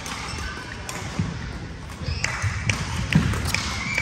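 Badminton doubles play in a hall: several sharp clicks of rackets striking a shuttlecock, more of them in the second half, over thuds of players' shoes on the court.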